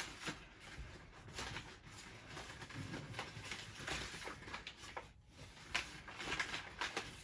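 Marker drawing on paper: a run of short, faint scratching strokes.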